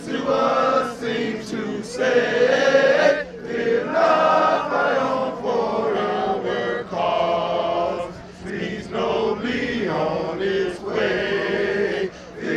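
A group of men singing together in unison, a slow chant-like song in long held phrases that break for breath every few seconds.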